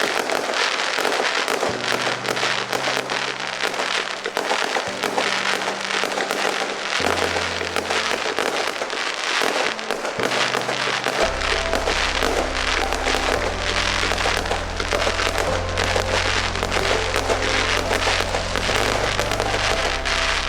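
Fireworks popping and crackling in a dense, rapid stream over show music. The music's bass line steps through sustained low notes and comes in much stronger about halfway through.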